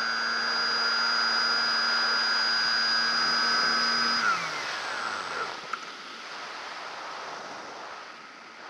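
Radio-controlled model plane's motor and propeller running steadily with a high-pitched whine, then throttled back about four seconds in, the pitch falling away. What remains is the rush of air over the gliding plane.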